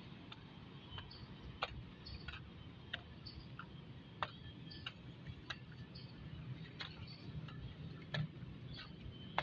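Footsteps on pavement, sharp clicks at an even walking pace of about one and a half steps a second, over a low steady rumble.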